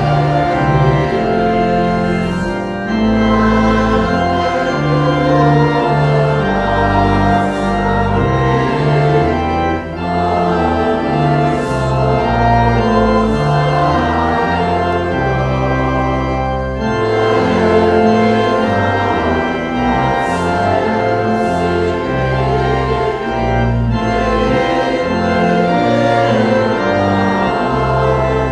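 Organ music: sustained chords that change every second or so over a slowly moving bass line, with no singing.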